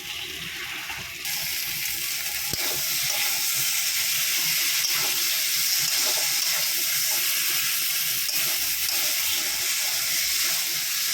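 Spiced potato curry sizzling in hot oil in a pan with cold sour yogurt just added, a steady hiss that turns louder about a second in.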